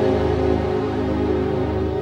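Orchestral soundtrack music of sustained, held notes over a deep low bass tone.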